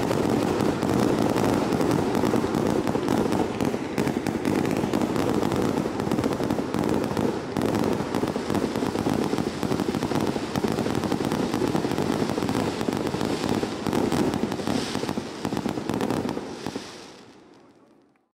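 Fireworks display: a dense, continuous barrage of launches, bursts and crackling. It fades away about two seconds before the end.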